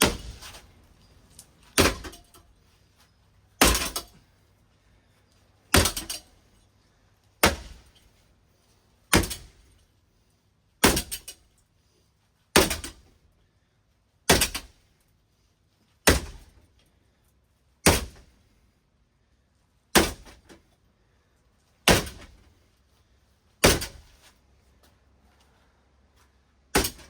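A ceiling fan being struck hard over and over, about fifteen heavy blows at an even pace of roughly one every two seconds, each a sharp bang that dies away quickly.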